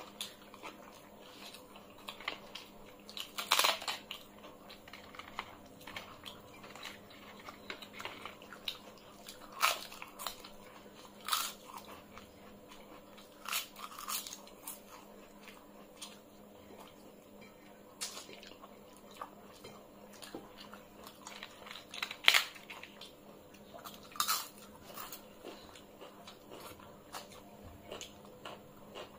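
Close-up eating sounds of people eating rice and curry by hand: chewing, with sharp crunches and clicks every few seconds over a faint steady hum.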